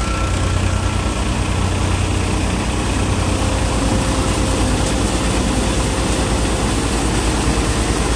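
Double-drum multicrop thresher running steadily under its driving engine: a continuous low drone with a rapid, even pulsing and a rushing noise above it.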